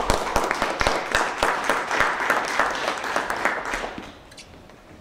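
Audience applauding, dense and steady at first, dying away to a few scattered claps about four seconds in.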